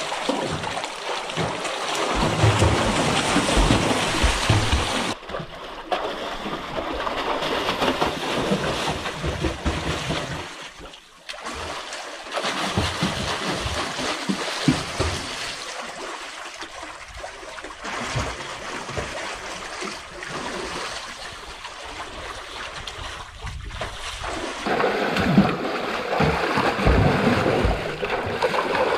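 Water splashing and churning as people swim and thrash about in a pool, breaking off abruptly a few times.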